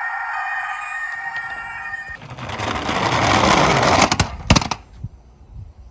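A toy's held electronic tone, then the rushing rattle of a toy minicar running down a plastic slope, growing louder for about two seconds and ending in a few sharp clacks.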